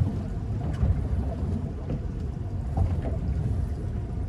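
Wind rumbling on a phone microphone aboard a small boat drifting at sea, with a few faint knocks of water against the hull.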